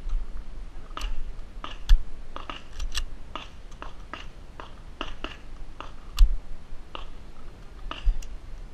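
Footsteps crunching on dry, gravelly dirt at a walking pace, about two steps a second, with a couple of sharper clicks among them.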